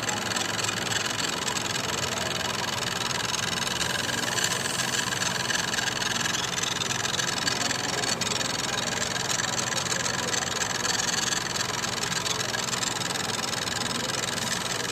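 Mahindra XUV300 engine idling steadily with a continuous rubbing noise from the accessory belt tensioner, the tensioner fault the car is being checked for. One faint click about eight seconds in.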